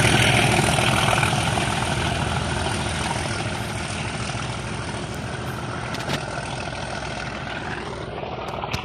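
Two English Electric Class 37 diesel locomotives working hard under power as they pull away, their engine noise fading steadily as the train draws off into the distance.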